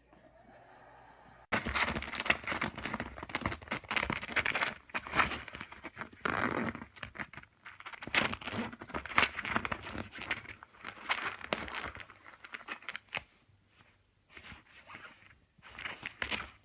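Rapid, irregular clattering and clinking of small hard objects, starting suddenly about a second and a half in and thinning out near the end.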